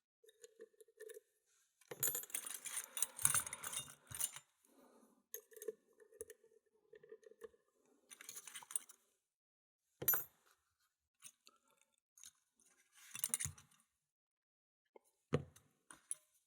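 Small metal lock-picking tools and a lock being handled, clinking and rattling in short irregular bursts, with a couple of sharp knocks near the end.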